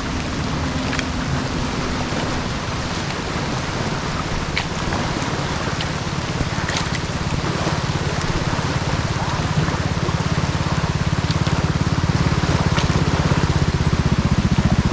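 Rain falling steadily, with scattered sharp drop hits, over a low rumble that grows louder near the end.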